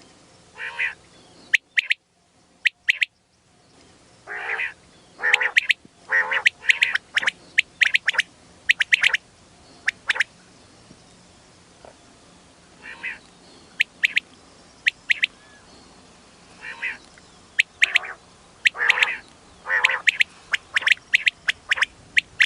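Female common quail calling: repeated short, harsh, nasal notes, mixed with quick sharp high notes in twos and threes.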